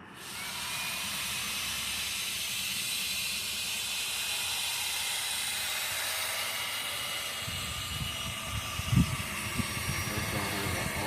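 Drill turning a 500-grit sanding disc against a plastic headlight lens at low speed: a steady whir and hiss of the disc scuffing the lens. A few low knocks come near the end.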